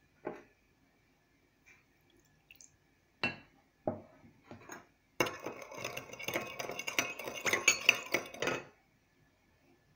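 A metal spoon clinks against a porcelain bowl a few times, then stirs briskly for about three and a half seconds, rattling fast against the sides. This is the stage of dissolving yeast in warm water for bread dough.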